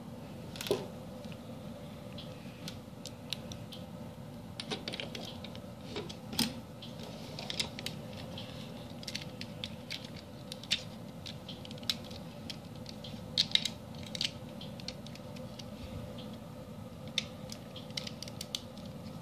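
Lego bricks and Technic parts being handled and pressed together: scattered small plastic clicks and rattles, a few of them louder, over a faint steady hum.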